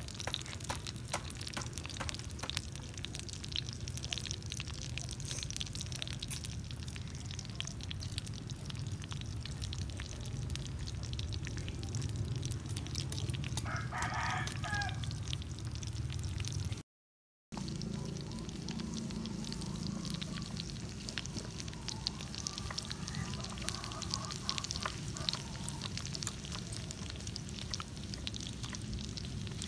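Steady crackling and sizzling of food cooking on a hot rock over a fire, with a short animal call about halfway through. The sound drops out briefly just after the call.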